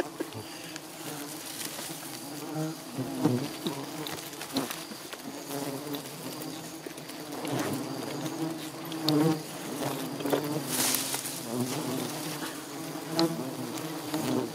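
Agitated swarm of giant honeybees buzzing thickly around the microphone, with single bees now and then swooping close in a wavering, rising-and-falling drone. The colony has been disturbed and is attacking and stinging the people near the nest.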